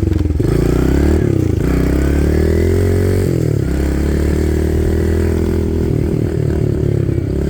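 A small vehicle's engine running, its pitch rising and falling as the revs change.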